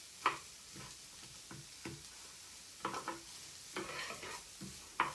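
Diced onion sizzling softly in hot oil in a nonstick frying pan while a wooden spoon stirs it, scraping and knocking against the pan several times.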